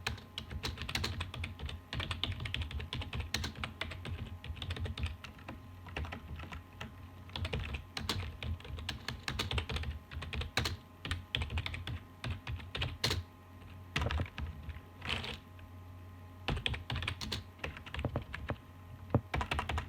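Typing on a computer keyboard: fast, irregular key clicks with short pauses and a few louder keystrokes.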